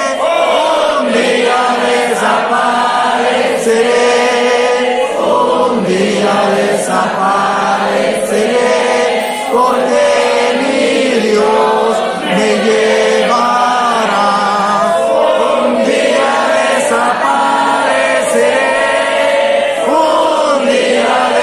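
Congregation of many voices singing a hymn together, continuously.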